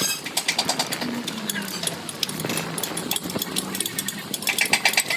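Rapid metallic clattering: quick runs of sharp, ringing knocks on metal, one run near the start and another near the end, with voices in the background.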